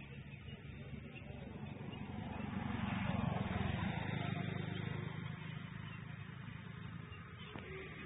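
A motor vehicle passing by: a rumble that swells to a peak about three seconds in, then fades away.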